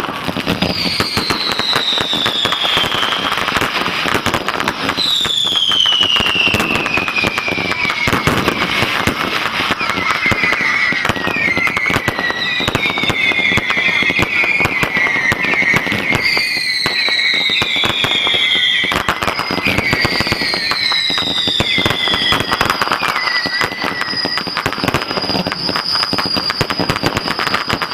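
Fireworks going off in quick succession: a dense, continuous run of bangs and crackles, with several whistling fireworks whose pitch falls over a second or two each, and one wavering whistle held for much of the second half.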